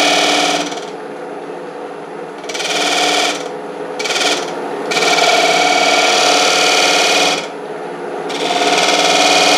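Wood-turning tool cutting into a spinning wooden urn on a lathe, scraping a small groove. It comes in about five passes of a second or two each, a rasping scrape with a ringing whine, with quieter lathe running between them.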